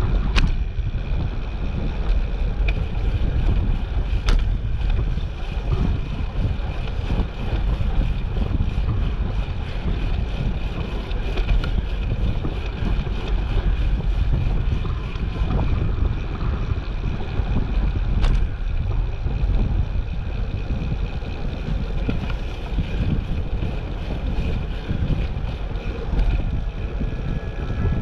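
Wind buffeting the microphone of a camera on a moving bicycle: a steady, heavy rumble, broken by a few sharp clicks.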